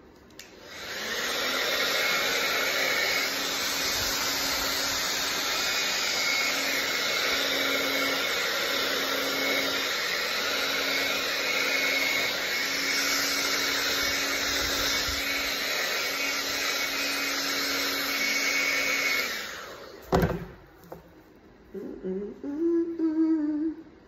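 A handheld hair dryer switches on, runs with a steady hum and rush of air, and is switched off after about twenty seconds.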